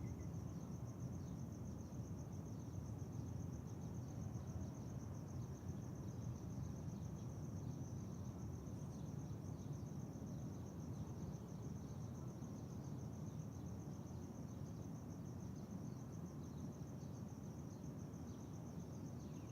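A steady, high-pitched insect trill, typical of a cricket, runs over a constant low rumble of room and neighbourhood ambience. A few faint short chirps come and go.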